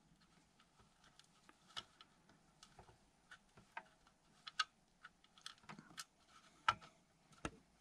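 Scattered light clicks and taps, irregular and a dozen or so in number, from hands handling metal parts and screws while a power supply unit is being screwed back together.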